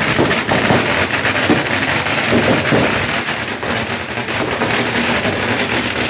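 Firecrackers going off in a dense, rapid crackle of sharp bangs that never lets up.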